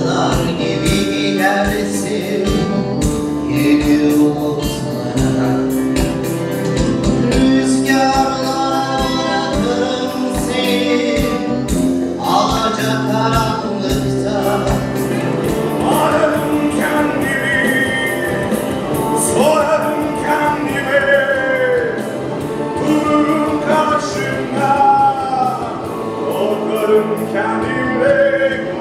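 A live band plays a song with a steady beat on electric guitar, bass, congas and drum kit, with singing over it.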